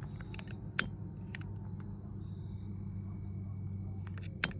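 Gas flame burning steadily with a low rumble as it heats a seized, rusted small engine around its crankshaft keyway. Two sharp clicks cut through it, one about a second in and a louder one near the end.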